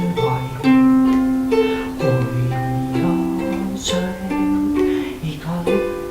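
Recorded music: an instrumental passage of plucked-string melody over bass notes, with no singing.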